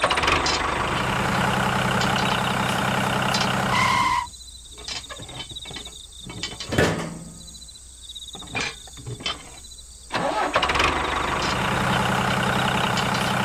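A tractor engine idling steadily, cutting out about four seconds in just after a short beep. For about six seconds there are only light clicks and knocks as the toy trailer is hitched to the toy tractor, then the engine idles again.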